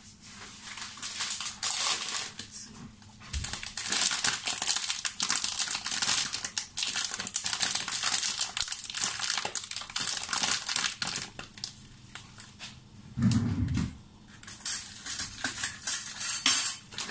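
Thin plastic bag crinkling and rustling as it is handled and opened, in quick irregular crackles with a brief lull, and a short low thud about thirteen seconds in.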